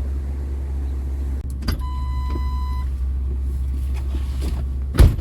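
Tow vehicle's engine idling with a steady low rumble; about two seconds in there is a click and a one-second electronic beep, and near the end a door slams shut.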